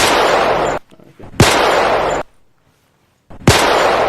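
Three bursts of automatic gunfire, each just under a second long and starting abruptly, with short silent gaps between them.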